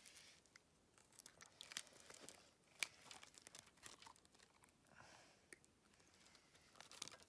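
Faint handling noise: scattered small clicks and short rustles from someone unhooking a thornback ray that has swallowed the hook. One sharper click comes about three seconds in.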